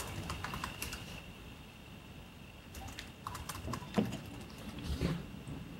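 Laptop keyboard typing: scattered keystroke clicks in a short run at the start and again about three to five seconds in, over a faint steady high tone.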